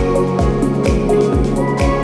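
Background music with a steady beat: melodic notes over a low kick drum about twice a second.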